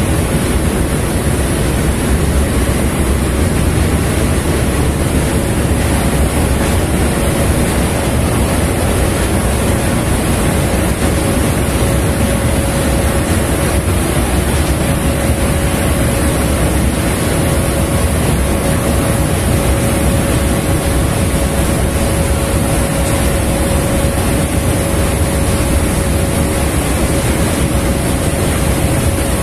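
Steady rumble of a boat's engine with wind and water noise, and a faint steady hum running through it.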